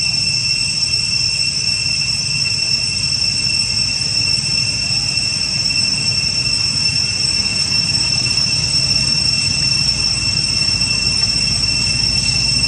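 Cicadas droning, a continuous high-pitched buzz that holds steady, over a low rumble.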